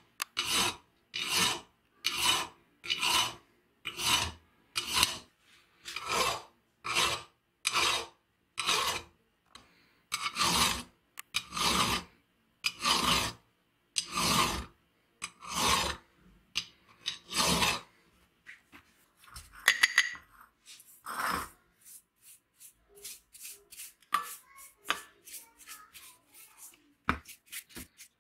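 Hand file rasping back and forth across a metal weld bead, smoothing the weld, in regular strokes a little faster than one a second. After about eighteen seconds the strokes turn short, light and uneven.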